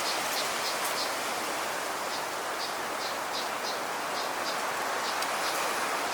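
Steady wind noise across the microphone, with faint short high chirps repeating roughly every third of a second.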